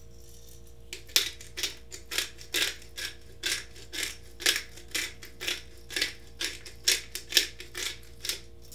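Twist-top pepper grinder being turned, grinding peppercorns in a run of crisp crunching clicks, about two or three a second, starting about a second in.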